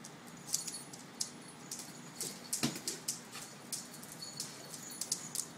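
Dogs' claws clicking and skittering irregularly on a hard floor as two dogs play, with one louder knock about two and a half seconds in.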